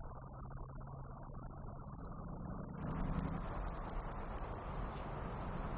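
Iwasaki grass cicada singing: a loud, steady high-pitched buzz that, almost three seconds in, breaks into a quick run of pulses, about nine a second, ending before the five-second mark. A fainter steady buzz carries on after it.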